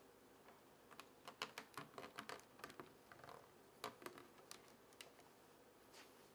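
Faint handling noise: a quick irregular run of small clicks and taps, with some cloth rustle, as hands adjust a collectible figure's fabric robe and touch its base. The taps come thickest between about one and four and a half seconds in.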